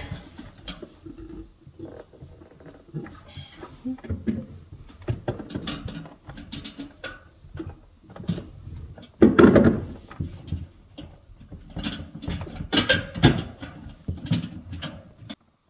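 Irregular clicks, scrapes and rattles of hands working metal and plastic parts inside a refrigerator's freezer, freeing the defrost heater from the evaporator's tabs. The handling is loudest about nine seconds in and again around thirteen seconds.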